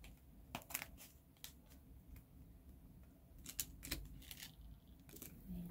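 Plastic cards and small items handled on a tabletop: a scattering of faint, light clicks and taps, bunched about half a second in and again around three and a half seconds in.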